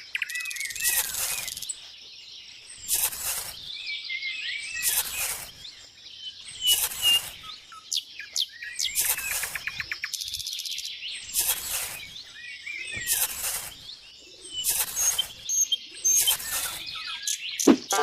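Small birds chirping, with a short burst of noise repeating about every two seconds.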